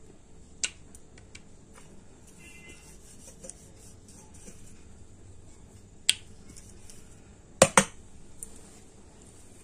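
Steel rolling pin and hands knocking on an aluminium rolling board while a small round of dough is rolled out. Between long faint stretches there are a few sharp clicks, the loudest a quick double knock near the end.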